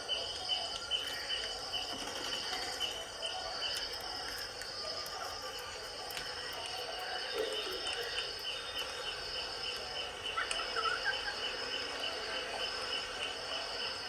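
Cricket-like insect chirping in a steady, evenly pulsing trill, with a short high wavering chirp about ten and a half seconds in.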